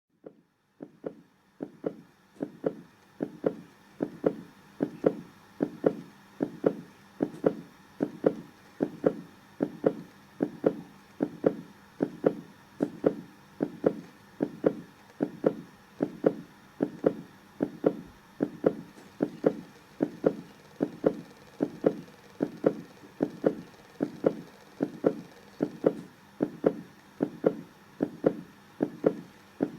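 Human heartbeat, a steady, even rhythm of dull double thumps (lub-dub), fading in over the first few seconds.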